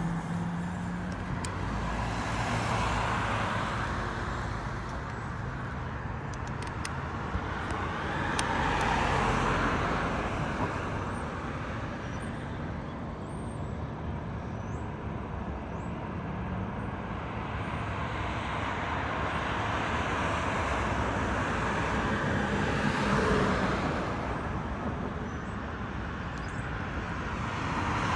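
Road traffic on a multi-lane street: a steady wash of tyre and engine noise, with several cars passing one after another, each swelling and fading away.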